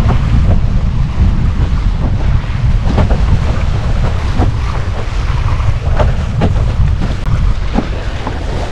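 Wind buffeting the microphone in a constant low rumble, with irregular short splashes and slaps of water as a windsurfer crosses choppy sea with rolling waves.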